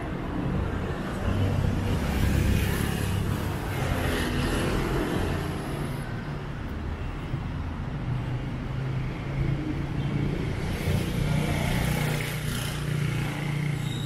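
Street traffic: vehicles passing on the road beside the pavement over a steady low rumble, swelling louder a couple of seconds in and again about eleven seconds in.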